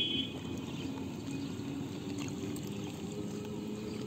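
Shallow paddy water trickling and splashing as a bamboo fish trap is lowered into it and pressed into place by hand.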